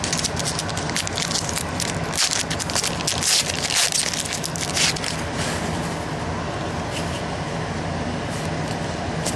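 Crackling and rustling of football trading cards and their pack wrapper being handled, busiest in the first half, over a steady low hum.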